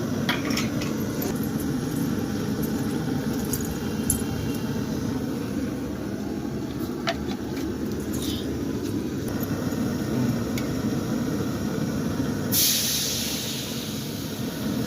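Pan cooking over a fire: a steady low rumble with a few light clicks of utensils, then a loud hiss for about two seconds near the end.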